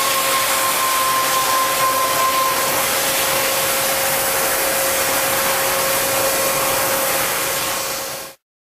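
Multi-head water jet cutting machine running: a loud, steady hiss of high-pressure water jets with a steady whine under it. A second, higher tone stops about three seconds in, and the whole sound cuts off suddenly near the end.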